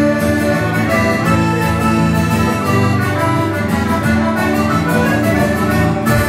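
Live instrumental folk music: accordion carrying the melody over strummed acoustic guitar, ending on a final chord near the end.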